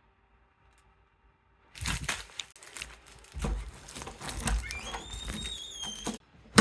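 Crinkling and rustling handling noise with many sharp clicks, starting about two seconds in, with a short rising squeak about five seconds in.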